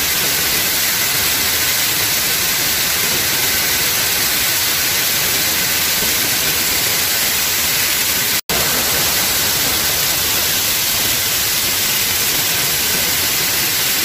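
Steady loud rush of a cascading waterfall, an even hiss with no change except a momentary dropout about eight and a half seconds in.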